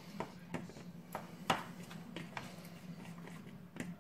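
A metal spoon stirring thick sour cream in a plastic bowl, with light, irregular clicks of the spoon against the bowl about every half second to a second.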